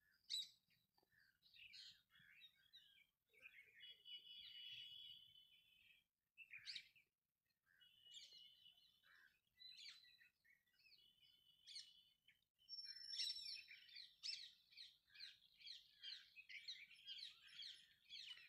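Faint birds chirping: scattered short chirps with a few brief held whistles, growing busier in the second half.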